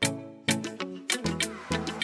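Upbeat background music with a steady drum beat, about two hits a second, over bass and chords.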